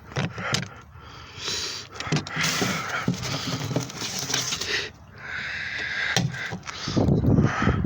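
Rustling and crinkling of plastic as a DVD case is handled, with scattered sharp clicks and a few heavier knocks near the end.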